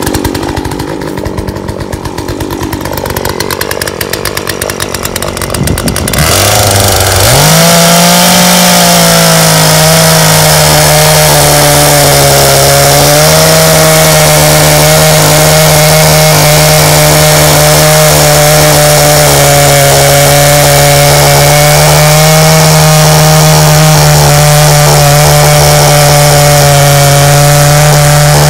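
Poulan Pro 42cc two-stroke chainsaw idling, then opened up to full throttle about six seconds in and held there, cutting through an ash log with a steady engine pitch under load.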